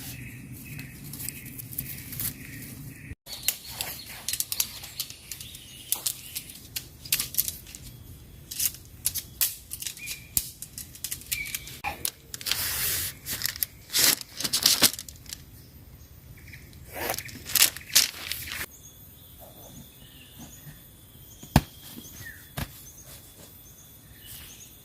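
Outdoor nature sounds: irregular crackling and rustling, with a few short bird chirps. The sound cuts abruptly about three seconds in, and the crackles thin out in the last few seconds.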